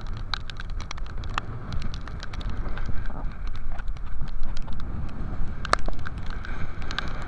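A fishing boat running through rough, windy sea: a steady low rumble of engine and wind, with many scattered sharp ticks of spray hitting the camera.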